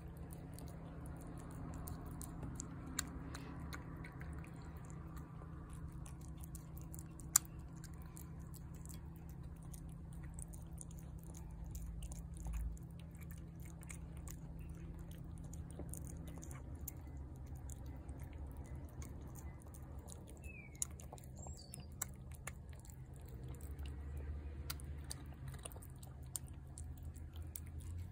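A cat chewing wet cat food off a plate, heard up close: a steady run of small clicks and smacks, with one sharper click about seven seconds in.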